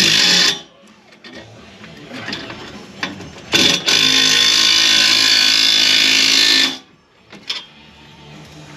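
Handheld power tool running in two bursts, a brief one at the start and a longer one of about three seconds midway, tightening the nuts on the exhaust clamps. Faint radio music plays underneath.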